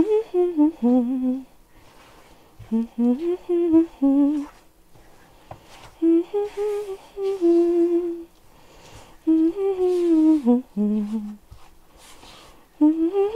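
A woman humming a tune to herself in four short phrases with pauses between them, a fifth beginning near the end.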